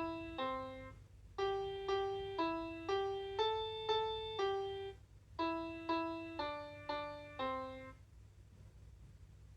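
Children's toy electronic keyboard playing a simple one-note-at-a-time melody in a piano-like voice, about two notes a second in short phrases, each note dying away; the tune stops about eight seconds in.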